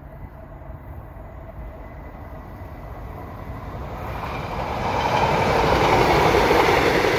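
A Northern diesel multiple unit passenger train approaching and passing close by at speed, its rushing noise growing steadily louder and loudest about six seconds in as the carriages go past.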